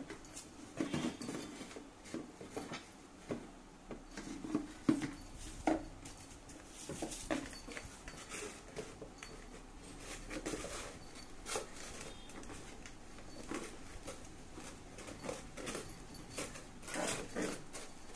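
Black Labrador puppy playing on a tiled floor, nosing at paper and shoving a plastic bowl about: irregular knocks, scrapes and clicks scattered throughout.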